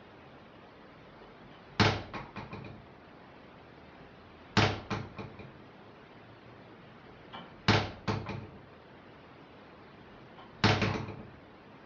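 A door rattling in its frame: four bursts, about three seconds apart, each a quick cluster of several knocks that dies away fast.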